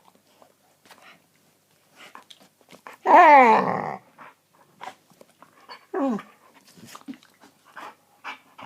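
Dog vocalizing: one loud drawn-out call about three seconds in, lasting about a second and falling in pitch, then a shorter, quieter falling call around six seconds, with faint snuffles and clicks between.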